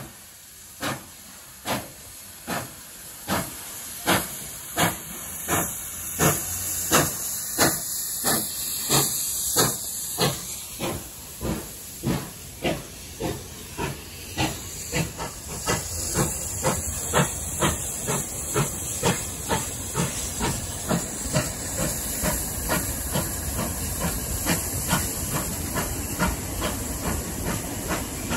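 Steam locomotive 3801 pulling away, its exhaust chuffing in regular beats that quicken from a little over one a second to about two a second, over a steady hiss of steam. The sound grows louder through the first half and then holds.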